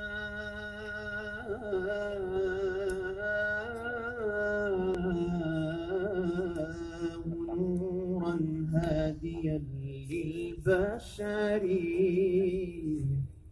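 A male singer performing an Arabic devotional qasida through a microphone and loudspeakers. He draws out long, ornamented notes with a wavering vibrato, and the phrase breaks off just before the end.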